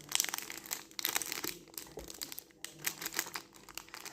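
Packaging of a flexible ruler being handled and pulled open, giving a run of irregular crinkling and crackling.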